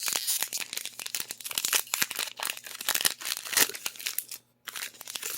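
Foil Pokémon booster-pack wrapper crinkling and tearing open, a dense run of sharp crackles and rustling that pauses briefly near the end.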